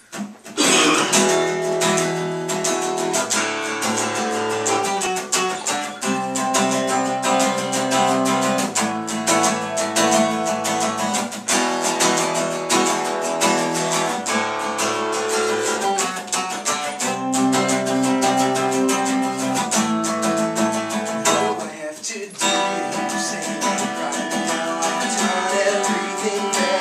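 Acoustic guitar strummed alone as a song's intro, starting about half a second in, with chords that change every couple of seconds and a brief break a few seconds before the end.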